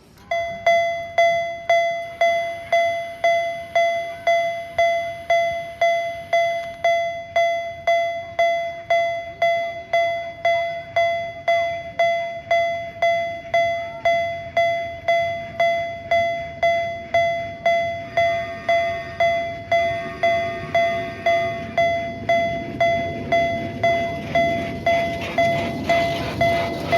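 Mini-railway level-crossing alarm ringing, an even metallic 'kan-kan' strike a bit under two times a second. From a little past the middle a rumble builds under it as the mini train approaches.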